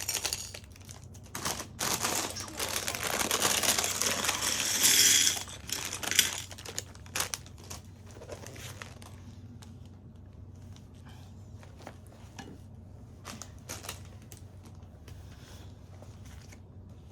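Crinkling and rustling, loudest from about two to five seconds in, followed by scattered light clicks.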